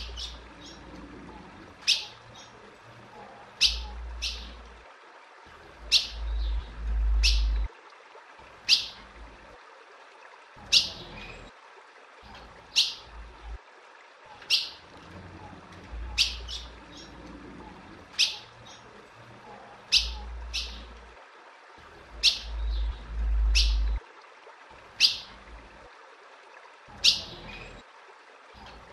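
Female ultramarine grosbeak (azulão) calling: a single sharp, high chip repeated about every second or two. A low rumble comes and goes underneath a few times.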